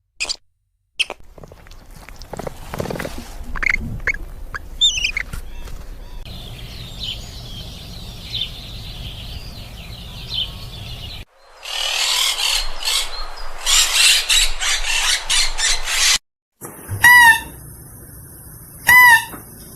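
Several short clips of animal calls joined by abrupt cuts, mostly birds or fowl calling. Near the end a loud call repeats about every two seconds.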